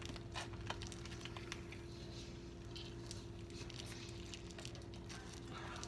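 Faint crinkling and small clicks of clear plastic wrap being handled and bitten, with a steady hum underneath.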